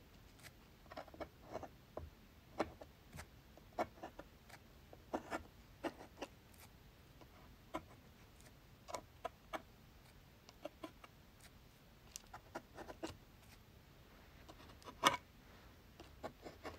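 The edge of a plastic store card scraping and tapping through wet watercolour paint on 140 lb watercolour paper, scraping out rock texture: faint, irregular short scrapes and clicks, with one louder scrape about fifteen seconds in.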